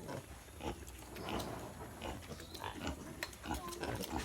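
Native pigs grunting: a nursing sow and her piglets making short, irregular grunts while the piglets feed at the teats.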